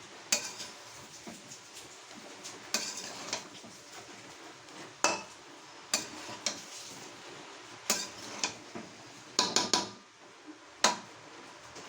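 A stirring utensil scraping and knocking against a cooking pan as cabbage, minced chicken and potatoes are mixed together, in irregular clatters every second or so.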